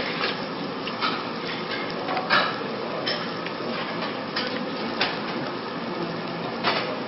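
Restaurant table noise: a steady hiss with scattered clinks and knocks of utensils on dishes, about seven in all, the sharpest a little over two seconds in.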